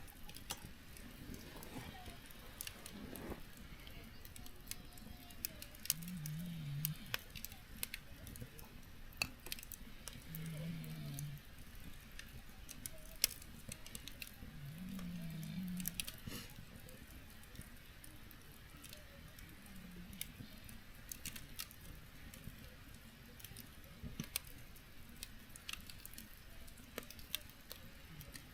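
Campfire crackling with scattered sharp pops, and a person snoring low three times, about four and a half seconds apart, in the first half.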